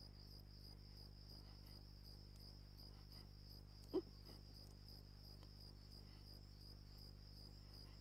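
Faint, steady high-pitched chirring of crickets, with one brief pitched sound about four seconds in.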